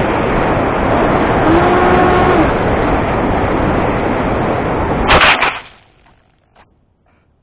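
Steady rush of wind over a model aircraft's onboard camera in low flight, with a brief whine about one and a half seconds in. A loud impact a little after five seconds as it comes down in the sand, and the wind noise cuts off suddenly, leaving only a few faint ticks.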